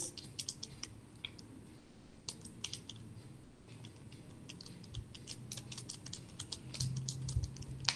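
Computer keyboard being typed on: light, irregular key clicks.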